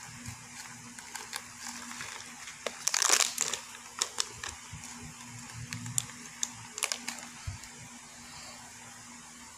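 Plastic supplement pouch crinkling and rustling in the hand while capsules are shaken out. There is a louder burst of crinkling about three seconds in and a few sharp clicks after it, and it settles down in the last couple of seconds.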